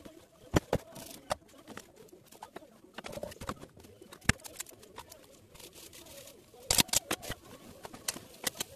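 Kitchen prep knocks: a kitchen knife and utensils clicking and tapping on a plastic cutting board and a frying pan, in scattered single hits with a quick run of them near the end.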